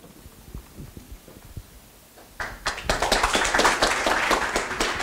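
Audience clapping, starting about halfway through and quickly building into steady applause. Before it there is only low room noise with a few faint knocks.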